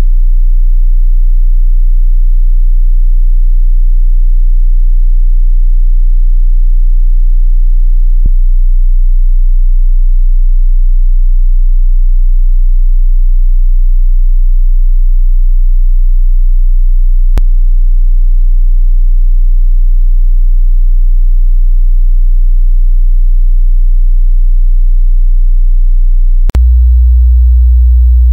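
Steady 30 Hz sine-wave test tone at 0 dB, for setting car amplifier gains. Near the end it switches abruptly to a louder 60 Hz test tone at −2 dB.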